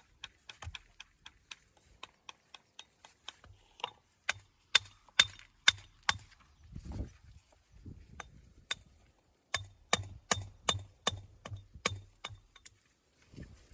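Hammer striking building stone in two runs of sharp taps, about three a second, roughing up the stone faces.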